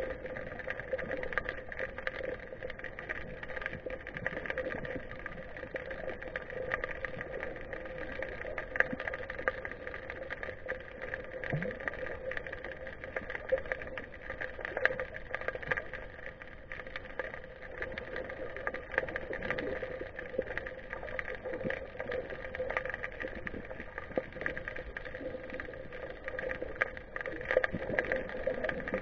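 Underwater sound picked up by a GoPro inside its waterproof housing while submerged: a steady muffled hum with scattered faint clicks and crackle.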